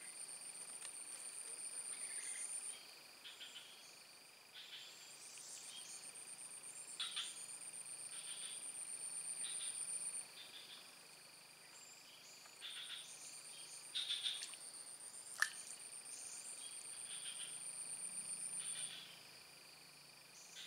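Faint swamp chorus of insects and frogs. A high, fast-pulsing insect trill comes and goes in long bouts of several seconds over a steady high drone, with short frog calls scattered throughout and one sharp click about two-thirds of the way through.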